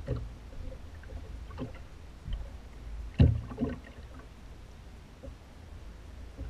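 Several knocks and thumps on a small fishing boat, the loudest about three seconds in, over a steady low rumble.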